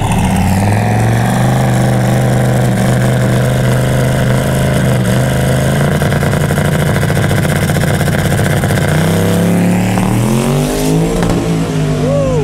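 A truck's engine running loud and close. Its pitch rises in the first second or so, holds steady for several seconds, then rises again as it revs near the end.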